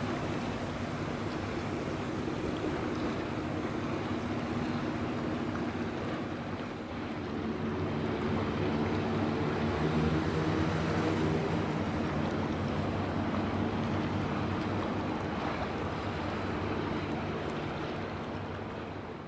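Tugboat's twin Niigata 6L26HX diesel engines running steadily under the rush of bow wash and wind on the microphone. A second engine note, from a smaller passing launch, grows louder about seven seconds in and eases off toward the end.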